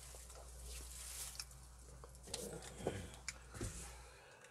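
Faint handling noise: rustling and a few soft knocks as a hand reaches for and grips the recording phone, over a low hum that cuts off near the end.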